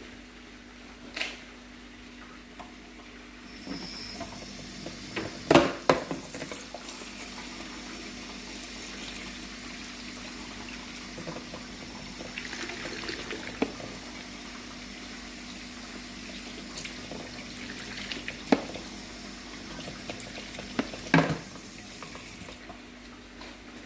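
Kitchen tap running water into a sink, turned on about four seconds in and off near the end, with a few sharp clatters of utensils or dishes.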